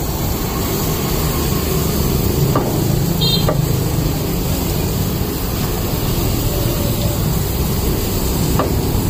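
Steady low street rumble, with a few light clicks as metal tongs turn meat on a charcoal grill grate, and a brief high squeak about three seconds in.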